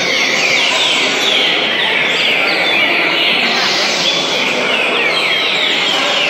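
Many caged trinca-ferros (green-winged saltators) singing at once: a dense chorus of overlapping whistled notes, most sliding downward in pitch, over a steady background din.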